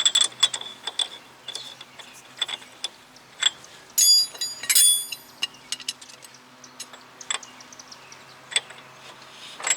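Hand ratchet clicking in irregular spells as the front axle nut is run down on the hub, with scattered metal clicks and a couple of ringing metallic clinks about four to five seconds in.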